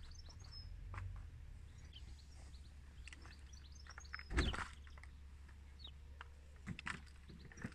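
Small birds chirping in the background over a low wind rumble on the microphone, with a brief louder rustle of hands working the plastic seed tray and compost about four and a half seconds in.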